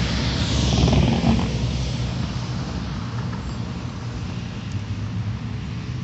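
Road traffic: a vehicle passes, loudest about a second in, over a steady low engine and tyre hum.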